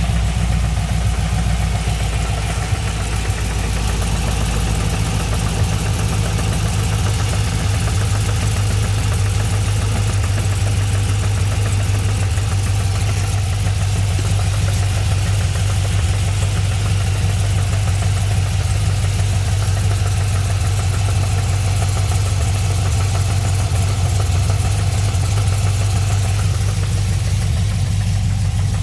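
GM LS3 6.2-litre V8 idling steadily with an even, rapid pulsing beat.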